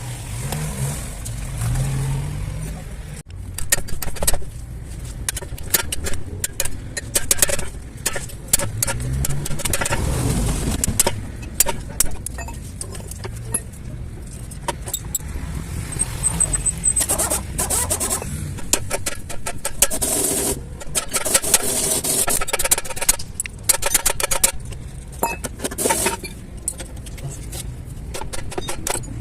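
Repeated metallic clinks, knocks and rattles from tools and steel parts being handled during a rear axle bearing job, some ringing briefly after each strike.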